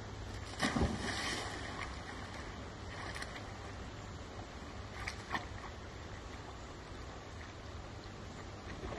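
A dog jumps into a canal with a splash just under a second in, then swims across. Under it runs a steady low rush, with a couple of faint splashes or knocks around five seconds in.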